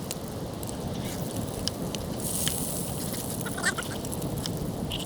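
A few short honking bird calls about three and a half seconds in, over a steady hiss with scattered light clicks.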